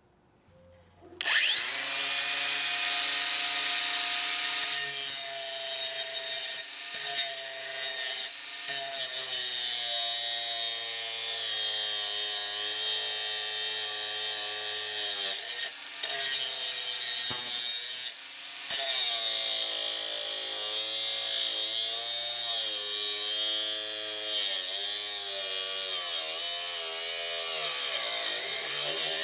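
Bosch GWS 180-Li 18V cordless angle grinder spinning up about a second in, then running with its disc on a workpiece. The motor's whine sags and recovers again and again as the disc is pressed in and eased off. It breaks off briefly a few times.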